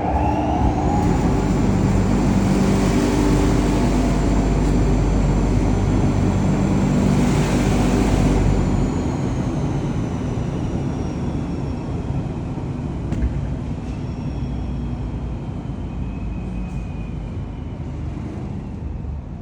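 Air shower blowers running: a loud rush of air over a low rumble, with a high fan whine that rises as the motors spin up. About eight seconds in the whine falls and the air blast weakens as the blowers wind down.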